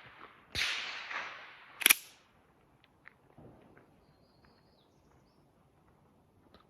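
Two gunshots just over a second apart. The first trails a long fading echo; the second is sharper and much louder.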